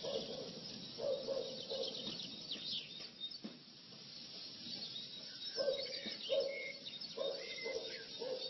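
Birdsong: many small birds chirping and twittering, with lower notes repeated in short groups.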